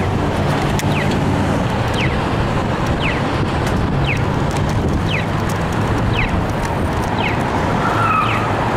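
Wind buffeting the microphone of a camera carried on a moving bicycle, mixed with car traffic noise at a busy intersection. A short high chirp repeats steadily, a little more than once a second.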